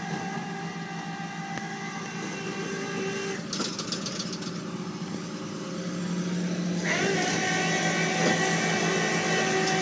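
Flatbed tow truck's hydraulic winch running as it pulls a car up the bed. It makes a steady droning whine of several tones, with a brief rattle about three and a half seconds in, and grows louder with a shift in pitch about seven seconds in.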